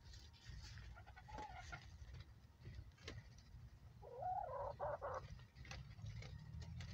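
A bird in the pen gives one wavering call lasting about a second, about four seconds in, after a shorter single note just over a second in.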